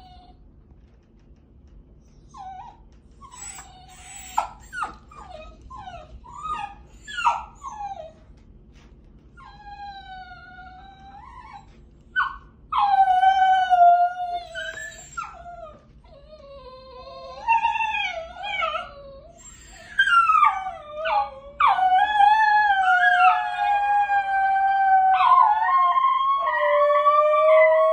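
Basenjis yodelling. Short yips and whines come first, then long wavering howls that swoop up and down and grow louder. From about three-quarters of the way through, two dogs howl at once at two different pitches.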